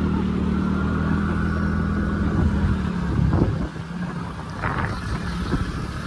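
Motorcycle engine running while being ridden, a steady low hum that drops away briefly a little past halfway and then picks up again.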